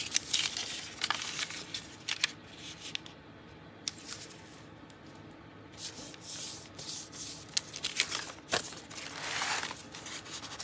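Tea-dyed paper being folded by hand: rubbing and rustling as the fold is creased and pressed flat, with a few light clicks and a quieter stretch in the middle, then more paper rustling as the folded sheet is handled against the journal pages.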